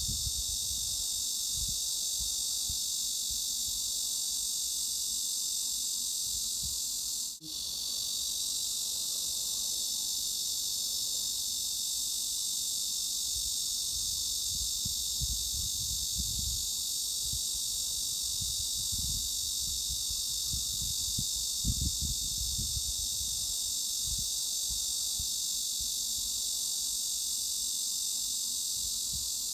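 Cicada chorus: a steady, shrill, unbroken drone concentrated above about 3.5 kHz. It cuts out for an instant about seven seconds in, and an irregular low rumble comes and goes underneath.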